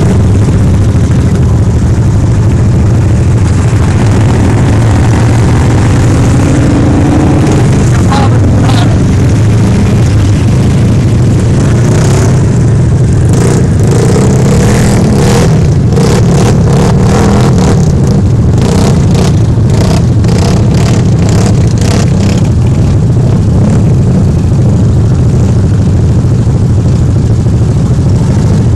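Off-road side-by-side UTV engines running loud and steady at close range, with a run of sharp crackles in the middle.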